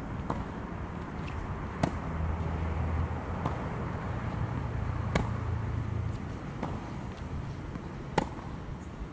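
Tennis balls struck with rackets in a baseline rally on a hard court: a sharp pock from the near racket about every three seconds, with fainter hits and bounces from the far end between. A low rumble runs under the middle of it.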